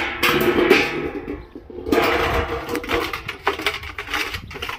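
Stainless steel dog bowl clanging and ringing as it is knocked against the concrete, then a Siberian husky puppy pawing and splashing in the water, the bowl rattling in a rapid run of clatters.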